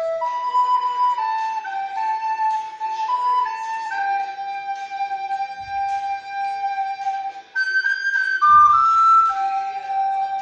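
Recorder (blockflöte) playing a song melody, moving note to note with a long held note in the middle and a short climb to higher notes near the end.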